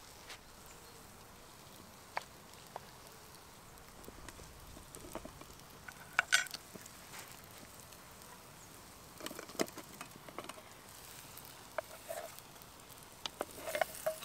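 Scattered light clicks and taps of cooking utensils on a camp-stove frying pan, with one sharper tap a little under halfway through and small clusters of taps later on.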